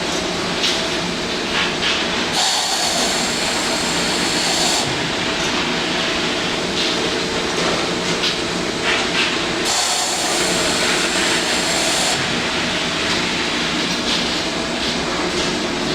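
Industrial tunnel washing machine running with a steady mechanical hum and scattered clicks. A high hiss with whining tones comes on twice, for about two and a half seconds each time.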